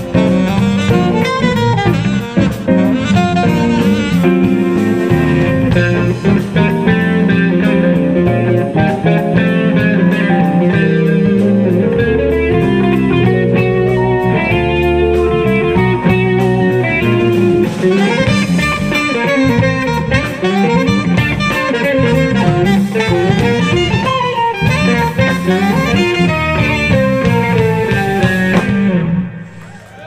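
Live jazz-funk fusion band playing: electric guitar over electric bass, drum kit and keyboard. The music fades out quickly near the end.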